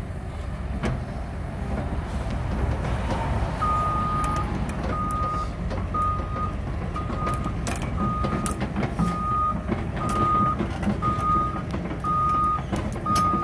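Caterpillar 312E L excavator's diesel engine running under a steady low rumble while the machine tracks. From about three and a half seconds in, its travel alarm beeps once a second in a single steady tone, and sharp metallic clanks and knocks sound through the second half.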